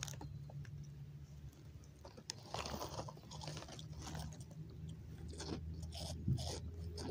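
Someone chewing and crunching food close to the microphone, in irregular crunches, over a low steady hum.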